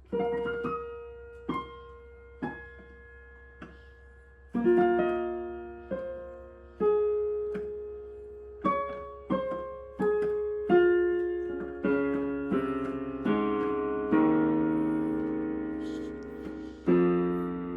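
Slow solo piano music. Single notes ring out and fade at first, then fuller chords come in toward the end.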